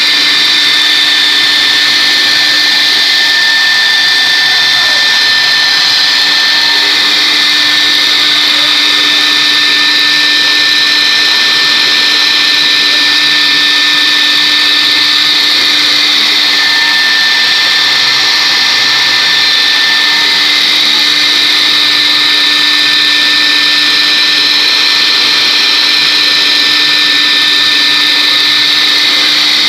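Four-axis CNC router's spindle running at speed and milling a block of polystyrene foam: a steady high whine over a hissing cutting noise that swells and eases slightly as the tool moves through the foam.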